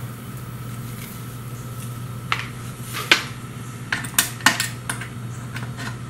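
Irregular sharp clicks and light clinks from a charging cable and its connector being unwound and handled, starting about two seconds in, over a steady low hum.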